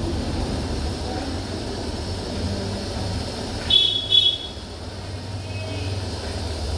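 Steady low rumble of street traffic, with two short high beeps about four seconds in.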